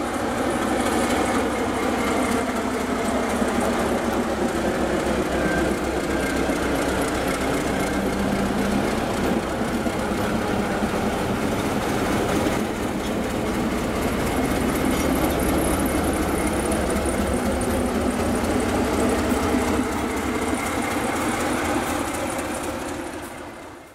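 ČSD class T 678.0 diesel locomotive running, its engine steady with a low rumble as it rolls slowly past on station tracks.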